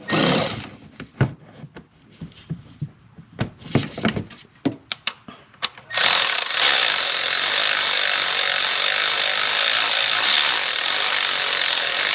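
Several short metallic clicks and knocks of tools being handled. About halfway through, a loud steady hiss with a faint high whine takes over and holds to the end.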